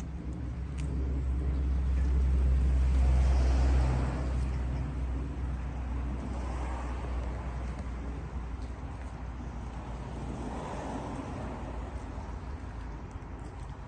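Vehicle noise: a deep rumble that builds to a peak about three to four seconds in and then fades, followed by softer swells of noise about six and ten seconds in.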